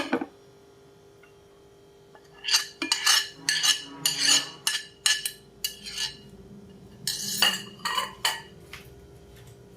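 Utensil clinking and scraping against a bowl while gobies are tipped into a bowl of coating flour: one click at the start, then a quick, irregular run of clinks from a few seconds in until near the end.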